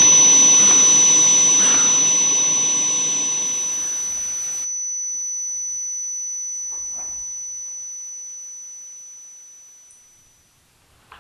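A piercing high-pitched steady ringing tone, a film sound effect, laid over a rushing hiss that cuts off abruptly about four and a half seconds in; the lone tone then fades slowly away and is gone near the end.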